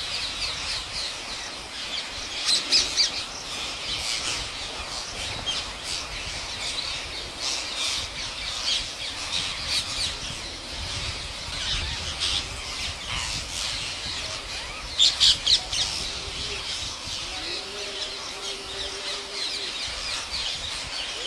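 A flock of parrots chattering and squawking without a break, with two louder bursts of sharp squawks: three about two and a half seconds in, and four about fifteen seconds in.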